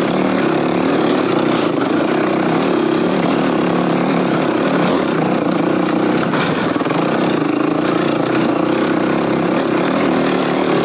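Dirt bike engine running steadily under light throttle while riding a trail, heard from the bike.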